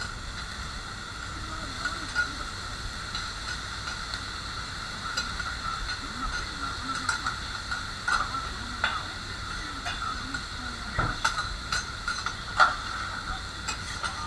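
Okonomiyaki sizzling steadily on a hot iron griddle, with sharp metal clacks and scrapes of the cook's spatulas against the plate now and then.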